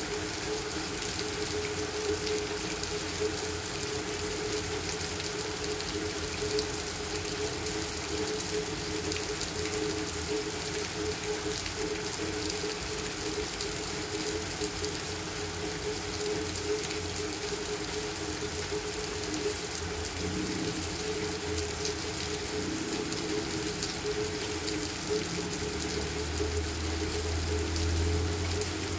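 Steady rain falling on wet pavement, puddles and parked cars, an even hiss throughout. Under it runs a steady low droning hum, and a deeper rumble swells briefly near the end.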